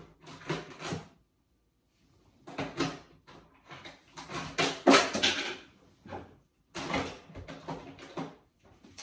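Kitchen drawers and cupboard doors being opened and shut and things being moved about: several bouts of clattering and knocking, the loudest about five seconds in.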